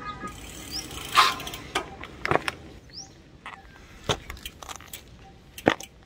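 Road bicycle being ridden, with scattered sharp clicks and rattles from the bike and a short hiss about a second in.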